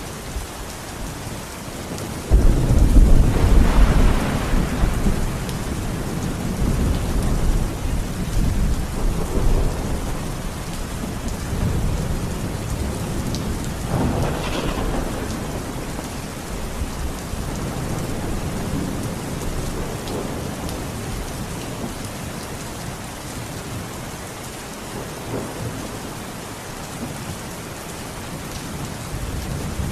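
Thunderstorm: steady rain with a sudden loud thunderclap about two seconds in that rolls on as low rumbling for several seconds, and a lighter crack of thunder about halfway through.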